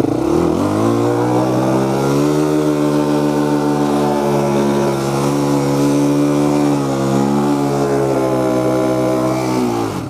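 Honda TRX400X ATV's single-cylinder four-stroke engine under way: the revs climb over about the first second, then hold nearly steady while riding, and drop off just at the end.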